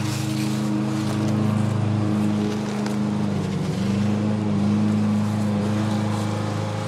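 A steady machine drone, a motor running at an even low pitch, with a slight wobble in pitch about halfway through.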